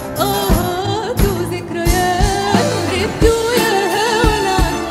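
A woman singing an Lebanese-style Arabic pop song live into a microphone, her melody wavering and ornamented, backed by a live band with keyboards, violin, guitar, bass, drums and percussion, the drums keeping a steady beat.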